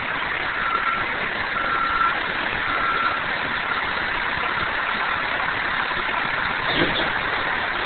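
Vehicle engine running in steady street noise, with a thin beep repeating about once a second that fades out about five seconds in, and a brief louder low bump near the end.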